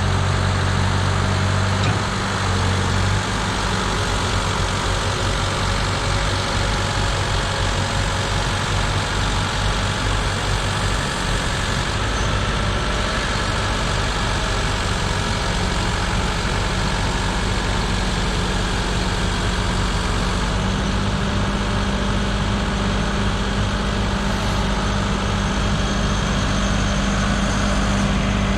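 Heavy diesel machinery engine running steadily. Its low note shifts a few seconds in and again about twelve seconds in, then holds steady.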